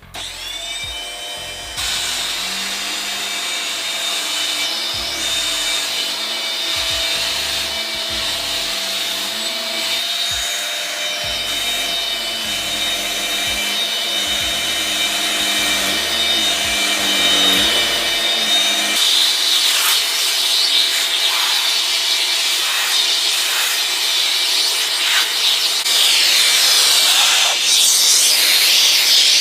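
Vacuum cleaner switched on, its motor whine rising as it spins up, then running steadily while the nozzle rubs and draws air across a surface. From about two-thirds of the way through the suction turns hissier and rougher.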